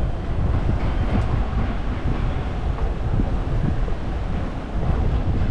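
Kyoto subway train running: a steady low rumble of wheels on rail.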